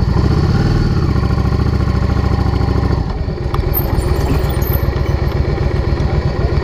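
Motorcycle engine running as the bike rolls slowly. About three seconds in, its note drops to a lower, slower beat.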